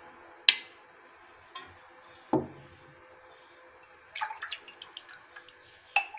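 A metal ladle and glass cups clinking while warm milk is ladled from a steel pot into the glasses: a sharp clink about half a second in, a duller knock a little after two seconds, and a run of light taps and drips near the end.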